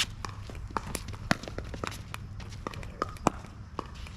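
Pickleball rally: paddles hitting the plastic ball in a string of sharp knocks, the loudest about a second in and again near three seconds, with players' shoes on the court between hits.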